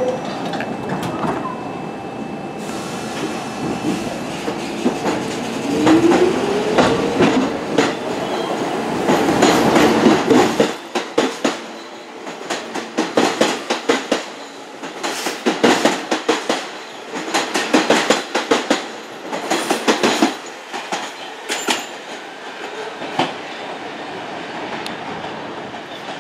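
R46 subway train pulling out of the station: its motors whine, rising in pitch a few seconds in as it picks up speed. Then the wheels click over the rail joints in repeated groups as each car passes, the clatter thinning and fading as the train draws away.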